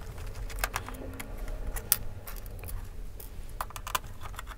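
Irregular light clicks and ticks of a small screwdriver working screws out of a laptop's metal bottom cover.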